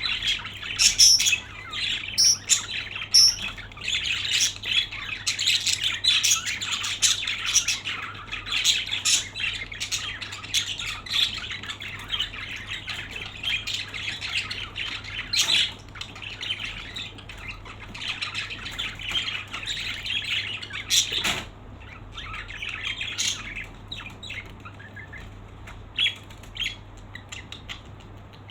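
Many small birds chirping and chattering at once in dense, overlapping calls, thinning to scattered chirps after about two-thirds of the way through.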